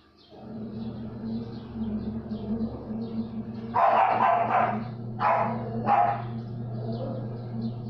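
A dog barking several times around the middle, the first bark longest, over a steady low hum.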